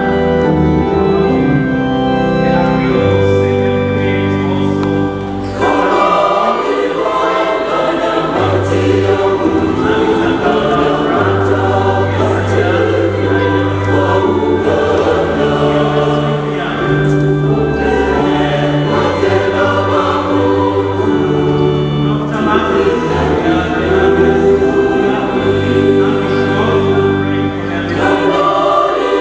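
Large church choir singing a hymn in parts, with instrumental accompaniment holding low bass notes that change every second or two. The singing grows fuller about five seconds in.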